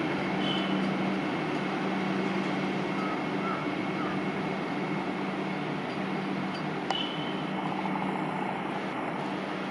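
Vande Bharat Express electric train set approaching as it slows, a steady running noise with a low hum, and one sharp click about seven seconds in.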